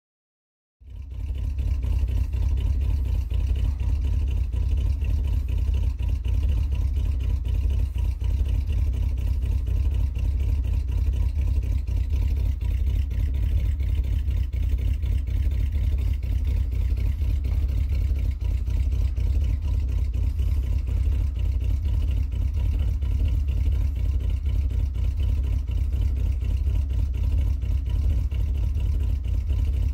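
Chevrolet Z71 pickup truck's engine idling steadily, a deep, even rumble from the exhaust.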